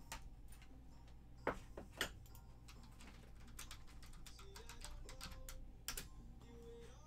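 Scattered light clicks and taps, with sharper knocks about one and a half and two seconds in and again near six seconds, over faint background music.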